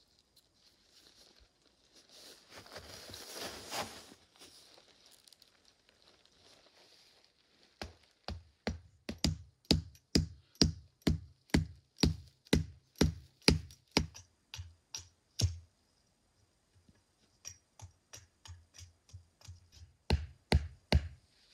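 A tarp stake being hammered in: a steady run of sharp knocks, about three a second, that stops, then comes back fainter and ends with a few loud strikes. Before the knocks there is a short rustle of tarp fabric.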